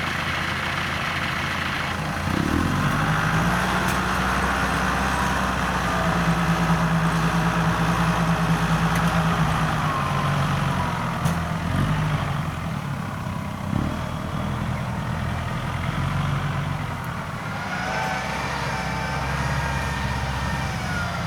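Kubota DC-93G rice combine harvester's diesel engine running steadily under cutting load. Its hum steps up in pitch and level about two and a half seconds in and eases back in the second half.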